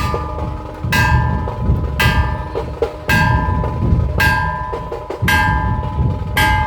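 Dhol tasha ensemble playing: dhol drums beating steadily underneath, with a ringing metal clash about once a second.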